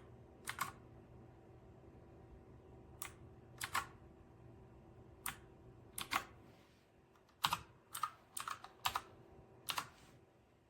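Slow, scattered keystrokes on a typewriter-style mechanical keyboard, each a sharp double click, with a quicker run of five or so presses from about seven seconds in. A faint steady hum lies underneath.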